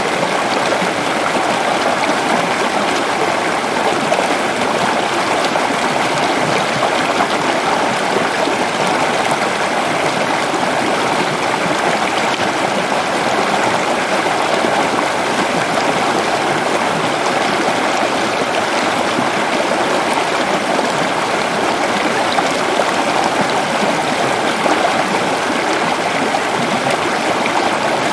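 Forest waterfall: steady, loud rushing and splashing of falling water.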